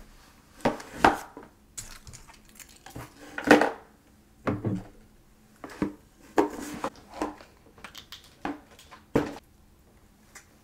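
Close-up ASMR trigger sounds: hard items being tapped, set down and handled, in about a dozen irregular clicks and knocks with brief scrapes and rustles between them.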